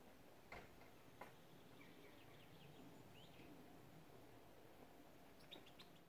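Near silence: a faint steady hiss with a few soft clicks, and a run of faint, short, high chirps, such as distant small birds make, in the middle.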